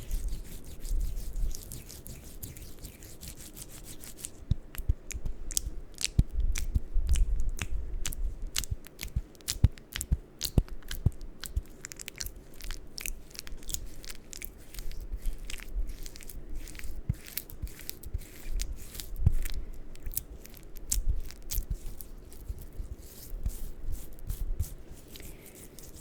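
Close-miked ASMR handling sounds: quick, irregular crisp clicks and crackles, dense from about four seconds in, over low soft thumps.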